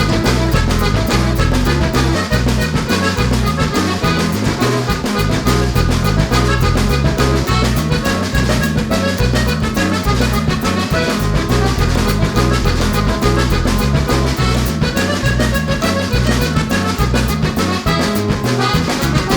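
Upbeat background music with accordion and brass over a steady beat.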